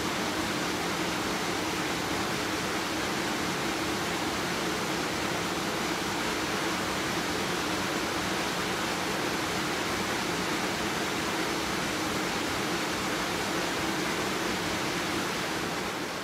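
Steady noise of workshop machinery running, with a constant low hum under it, starting to fade away near the end.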